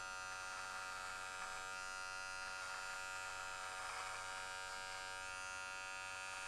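Wahl Magic Clip cordless hair clipper running with a steady buzz as it is drawn straight back through the beard under the chin.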